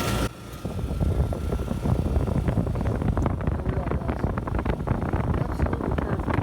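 Wind buffeting the microphone over a low rumble, beginning after a sudden cut about a third of a second in.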